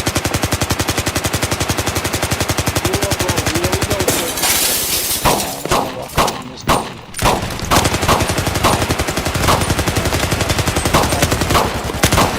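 Automatic gunfire in a firefight. A long unbroken burst of rapid shots runs for about four seconds, then a hissing blast, then scattered single shots and further bursts of automatic fire.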